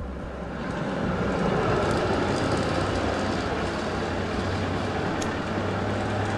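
Articulated Wegmann/Credé tram passing on street track and pulling away: a steady rolling rumble of wheels on rails that swells over the first second and then holds.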